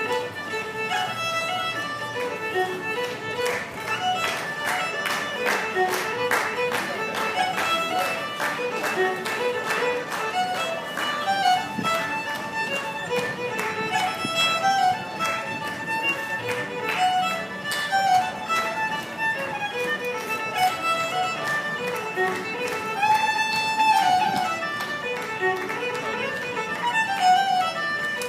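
Solo fiddle, unaccompanied, playing a lively fiddle tune in quick bowed notes, with one longer held note a little past the middle.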